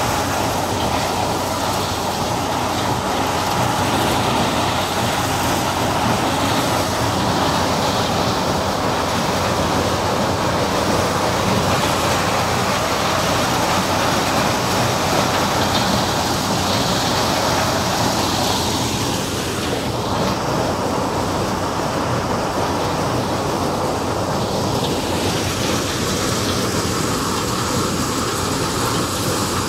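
Tractor-mounted threshing machine with conveyor running, driven by the tractor: a loud, steady mechanical clatter and rumble. A short falling whine shows about two-thirds of the way through.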